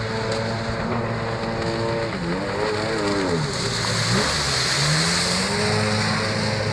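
Sea-Doo GTX personal watercraft running at speed, its engine note dipping and then climbing back up about midway, with a hiss of water spray loudest as it sweeps close by.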